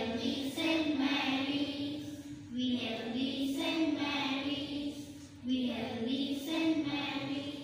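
Schoolchildren singing the school anthem together in three phrases, with short breaks between them, fading near the end.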